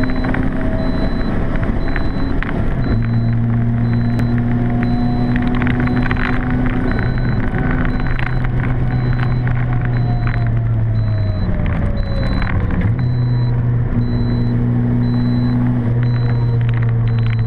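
Volkswagen Golf IV 1.9 TDI four-cylinder turbodiesel heard from inside the cabin at speed, a steady drone over road and tyre noise. Its note dips and settles again about two-thirds of the way through.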